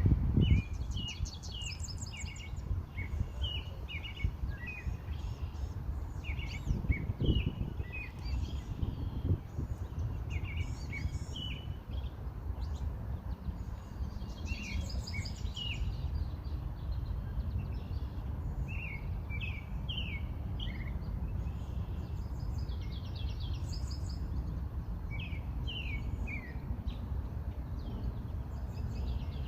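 Several songbirds chirping and trilling, short calls overlapping all through, over a steady low outdoor rumble, with a few soft thumps near the start and again around the middle.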